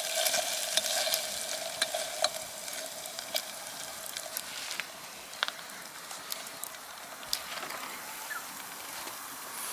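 Bacon sizzling in a pan, with scattered sharp pops and spits. The sizzle eases off after the first few seconds.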